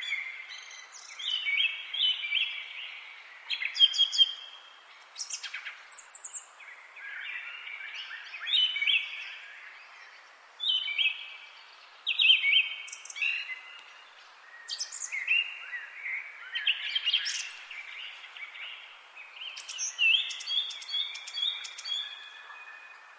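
European forest songbirds singing: short song phrases follow one another every second or two, with thin higher notes among them, over a faint steady background hiss.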